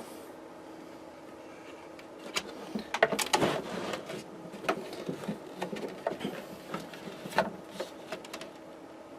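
Cable connectors being plugged together and wiring handled: scattered clicks, knocks and rustles, busiest from about two and a half to eight seconds in, over a faint steady hum.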